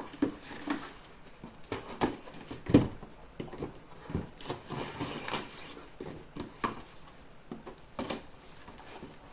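Cardboard boxes being handled: scattered knocks, taps and scrapes of cardboard, with a longer rustle about halfway through.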